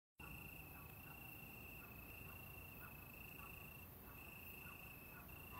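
Faint chirping of crickets: a steady high trill broken by short pauses, with softer, lower chirps now and then.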